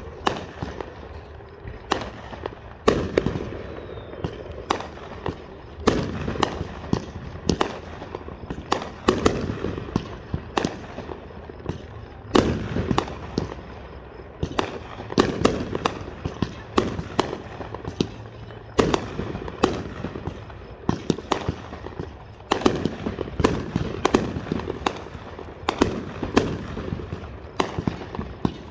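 Aerial fireworks show: shells bursting in an irregular stream of sharp bangs, sometimes several close together, each trailing off in an echo.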